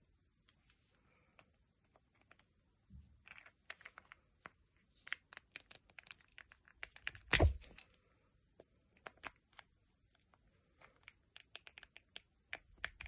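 Pliers gripping and working at a plastic spray-bottle pump head: a run of small plastic clicks and scrapes, with one much louder snap about seven and a half seconds in, then a quieter pause and more clicking near the end.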